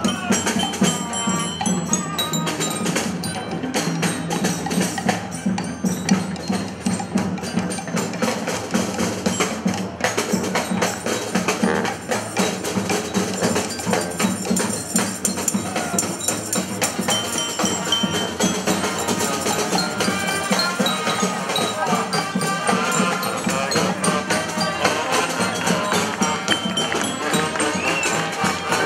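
A brass street band playing live, with busy drumming and percussion running steadily throughout.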